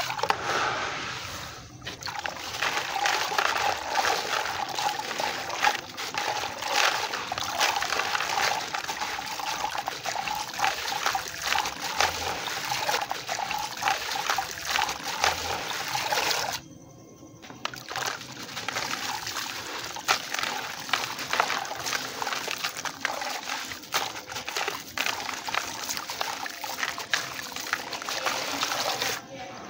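Hands crumbling soft white lumps into a basin of muddy water: gritty crackling crumbles with water trickling, dribbling and splashing as the bits fall in and the hands work the water. There is a brief lull about seventeen seconds in.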